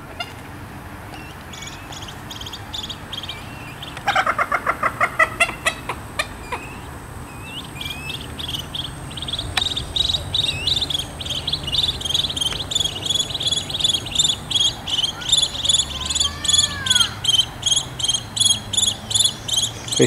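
Common gallinules calling: a fast run of chicken-like clucks about four seconds in, then a long series of high, repeated notes, about three a second, that grows louder.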